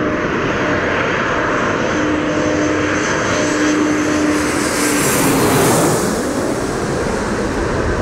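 Twin-engine jet airliner flying low overhead on final approach. The engine noise builds to its loudest about five or six seconds in as it passes above, with a high whine that rises and then falls, then eases off as the plane heads away toward the runway.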